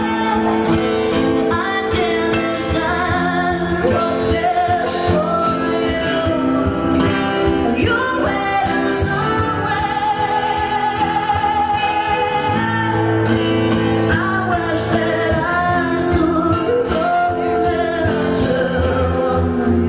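A woman singing live, accompanied by acoustic guitar.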